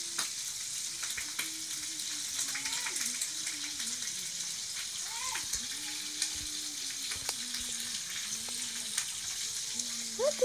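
A steady sizzling hiss with scattered light clicks and taps, with a few short rising calls, the clearest just before the end.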